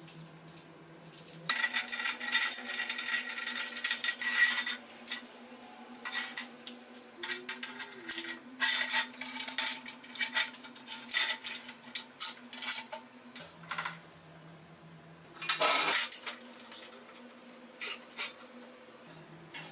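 Metal clinking and clanking as a homemade steel screw clamp is handled and clamped onto steel plate and square tubing on a steel welding table. The clinks come in irregular clusters, a dense run in the first few seconds and another near the end, with quieter gaps between.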